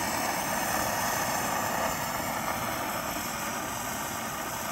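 Coleman 530 pressurized gasoline pocket stove burning at full flame, its burner giving a steady, even rushing noise.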